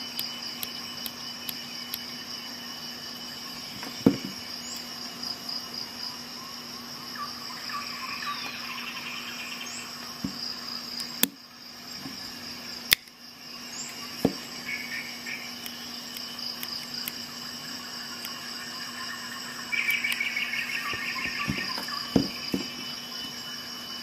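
Crickets chirring steadily throughout, with a few sharp metallic clicks from multi-tool implements and small scissors being opened and handled.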